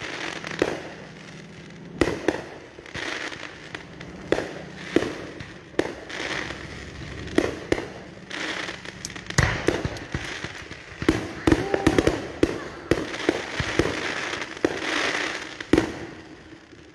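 Fireworks going off: many sharp bangs at irregular intervals, some close together, with crackling between them.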